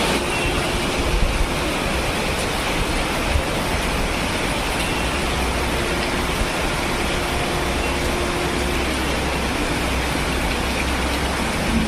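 Heavy rain falling in a steady, even rushing hiss, with a low rumble underneath.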